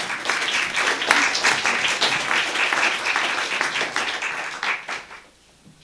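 Audience applauding with many hands clapping, thinning out and dying away about five seconds in.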